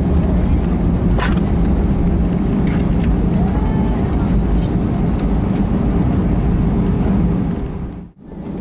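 Cabin noise of an Airbus A320 on its landing rollout, heard from inside the cabin: a steady, loud rumble of engines and wheels on the runway, with the spoilers deployed. The sound drops out abruptly for a moment near the end.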